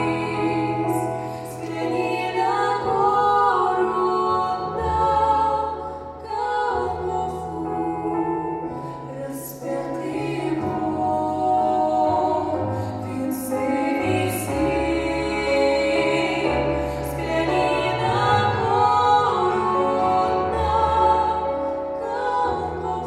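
Music: voices singing together, choir-like, over an accompaniment with held bass notes that change every second or two.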